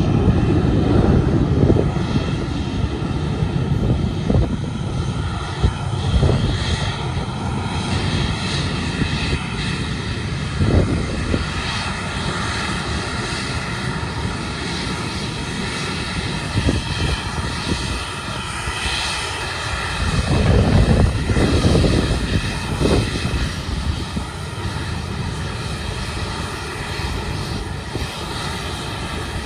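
Jet engines of a Southwest Boeing 737 turning at low power while it taxis: a steady whine of several tones over a low rumble that swells now and then.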